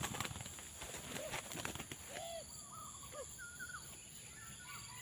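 Spotted doves cooing: a few short, curved coo notes about a second apart, with higher chirps from small birds. Clicks and rustles fill the first two seconds.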